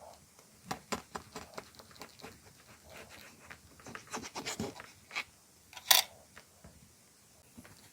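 Bakery bread packaging being handled and opened: scattered scratching and rustling with short clicks, and one sharp snap about six seconds in.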